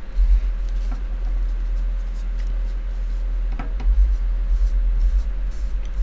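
Paper tissue rubbing and scuffing over a graphics card's GK110 GPU die as old thermal paste is wiped off, with a few light ticks about halfway through. A steady deep rumble underneath is the loudest part.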